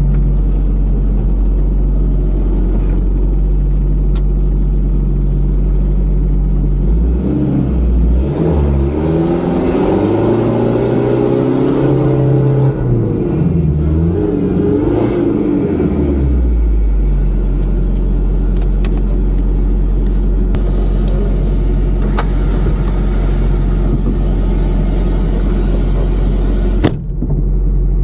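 Toyota Land Cruiser's engine heard from inside the cab, running steadily, then revved up and down repeatedly for about ten seconds as the truck crawls over steep, rutted forest ground, then settling back to steady running.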